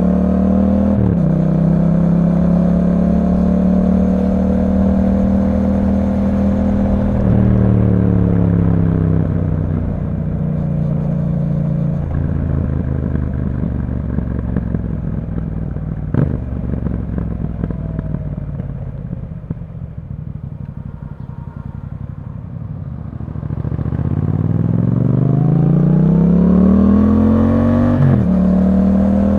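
2021 Yamaha MT-07's 689 cc parallel-twin engine through an Akrapovič exhaust, ridden through town. It pulls steadily with quick upshifts about a second in and around seven seconds. It then rolls off, and the engine note sinks and quietens as the bike slows for over ten seconds. Hard acceleration brings a steeply rising note, with further quick gear changes near the end.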